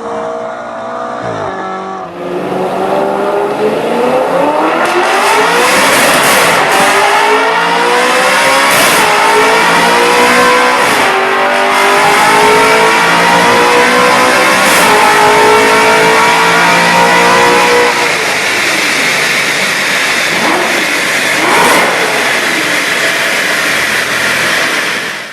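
Audi RS5 B8's 4.2-litre V8 through an Armytrix exhaust accelerating hard, its note climbing and dropping back at each upshift, then easing off near the end.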